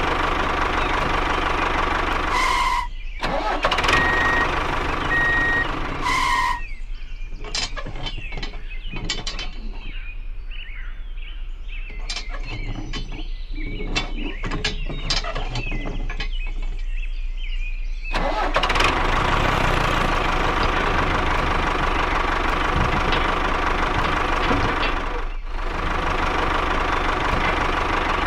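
Steady tractor-engine running sound as the toy tractor drives. After about six seconds it gives way to a quieter stretch of small clicks and taps while a disc harrow is bolted to the tractor's rear hitch. The engine sound starts again about eighteen seconds in.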